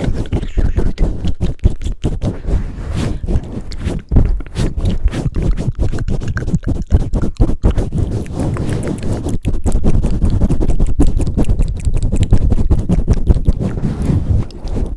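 Close-up microphone handling for ASMR: hands pumping and swirling over the microphone, making a dense, rapid, muffled rumbling and rubbing with quick thumps several times a second.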